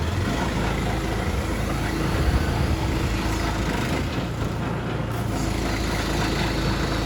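Pressure-washing rig running steadily: a constant engine hum with a broad hiss over it.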